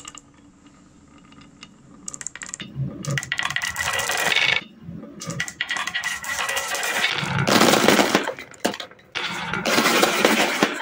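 Many painted wooden marbles rolling and clattering down wooden marble-run tracks in several dense bursts of rattling clicks. Near the end they tumble into the plastic bed of a toy dump truck.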